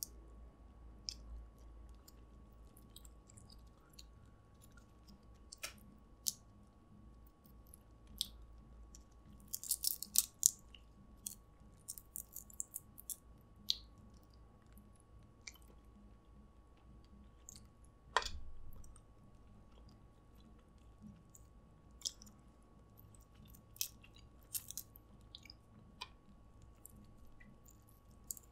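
Snow crab being picked apart and eaten by hand: scattered clicks and crackles of crab shell with soft chewing, a cluster of crackling about ten seconds in and a single knock a little past halfway.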